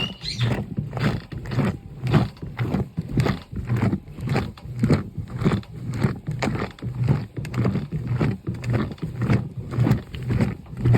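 Washing machine washing a pair of sneakers: water sloshing in the drum in uneven pulses about twice a second.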